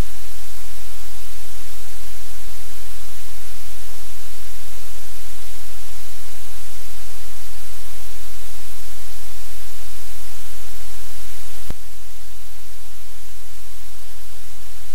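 Loud, steady static hiss with a low hum beneath it. A single click about twelve seconds in, where the hiss drops slightly.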